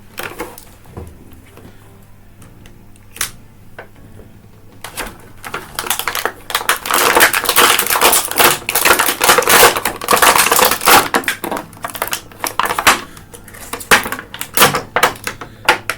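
Action figure packaging being opened by hand: cardboard and plastic crinkling, crackling and rustling, loudest for several seconds in the middle, with a few sharp clicks.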